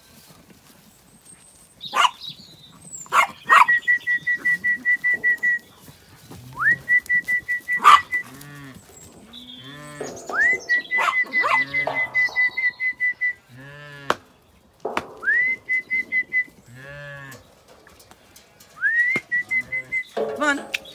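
Zwartbles sheep and lambs bleating repeatedly: deep ewe calls and a higher call that rises, then pulses rapidly for a second or two, recurring several times. A few sharp knocks come in between.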